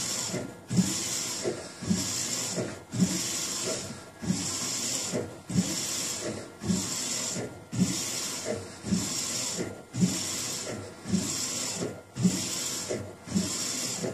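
AnaJet mPower direct-to-garment printer running through its print passes. It repeats about once a second: a short knock, then a steady whirring hiss.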